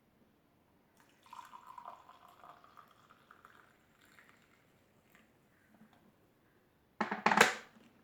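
Hot mulled wine poured from an electric kettle into a mug: a short trickle whose pitch rises slightly as the mug fills, lasting about two seconds. A brief loud noise comes near the end.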